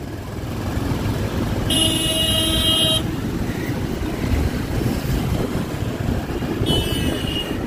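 City road traffic with engines running, and a vehicle horn honking for about a second, about two seconds in. A second, shorter and higher-pitched horn toot sounds near the end.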